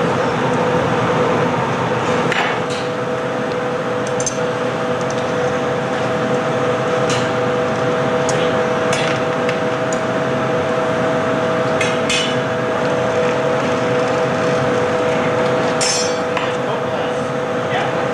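Steady noise of a hot-glass studio's furnace burners and fans, with two steady hum tones. Short metal taps and clinks sound every second or two, irregularly, as steel glassblowing tools meet the pipe and the glass.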